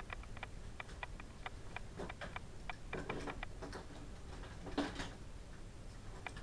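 Steady, even ticking, about three ticks a second, with a couple of brief, louder sounds about three and five seconds in.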